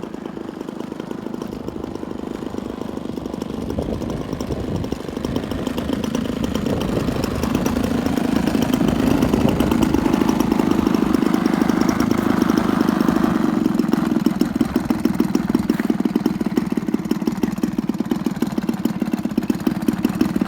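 Two-stroke gas engine of a giant-scale RC Yak 54 running at low throttle as the plane taxis in. It grows louder over the first several seconds, then holds at a steady, fast, even beat.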